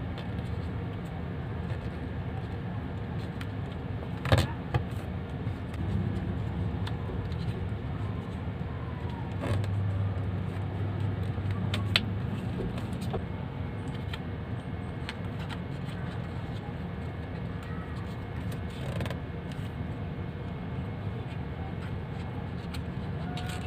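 Sheets of origami paper being handled and folded, with a few sharp creasing crackles, the loudest about four seconds in and another near twelve seconds, over a steady low background rumble.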